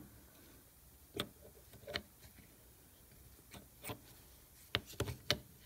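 A handful of light, scattered clicks and taps of metal parts being handled and fitted together: the end plate with its ball bearing being seated onto the cylinder of an air impact wrench's vane motor.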